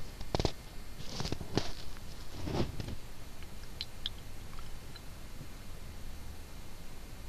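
Handling noise of a phone being moved while filming: several knocks and rustles in the first three seconds, a few faint ticks, then a faint low hum.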